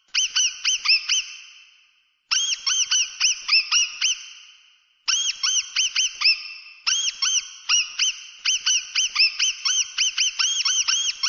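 Mouse squeaking: runs of short, high chirps, several a second, each run trailing off in a fading echo, with a longer unbroken run in the second half.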